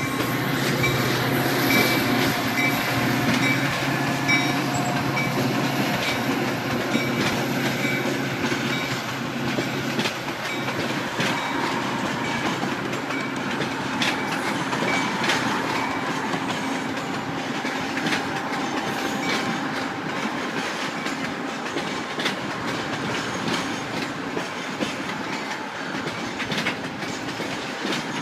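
Passenger train rolling along the tracks, wheels clicking over the rail joints in a steady rumble, with a low hum through the first several seconds.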